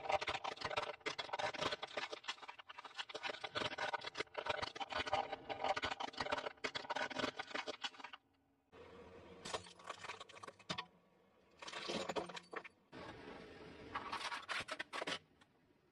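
Hollow plastic toy cars cracking and crunching as a vehicle tire rolls over them on grit, with dense crackling for about eight seconds, then three shorter bursts of cracking.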